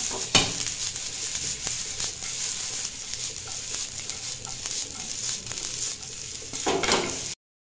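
Grated carrot and sliced French beans sizzling in oil in a non-stick pan while a wooden spatula stirs and scrapes them. There is one sharp knock about half a second in, and the sound cuts off suddenly just before the end.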